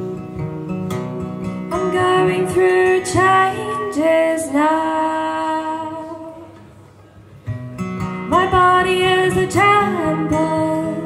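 A woman singing to her own acoustic guitar: two sung lines over a steady guitar accompaniment, with a brief lull between them a little past the middle.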